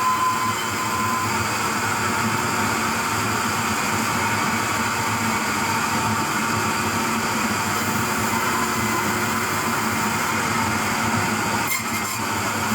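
Steady running noise of heavy machinery, with a few steady hums in it and a brief break about a second before the end.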